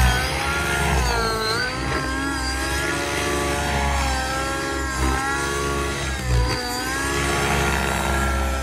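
MSH Protos Nitro radio-controlled helicopter's nitro glow engine running at high revs, its pitch dipping and coming back up several times, about every one and a half to two seconds, as the load changes in flight.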